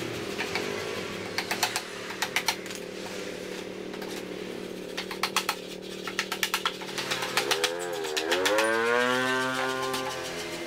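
Hand hammering on a bamboo frame joint in short bursts of quick, sharp taps, over the steady hum of a motor. In the last few seconds the motor dips and then rises in pitch and becomes the loudest sound.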